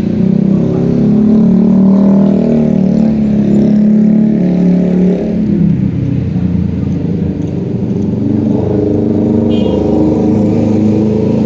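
A vehicle engine running steadily close by, its pitch easing down a little about five seconds in.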